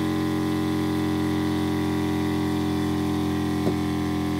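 Motorhome water pump running with a steady hum, pressurizing the water system and pushing water from the tanks through the filter to the tap.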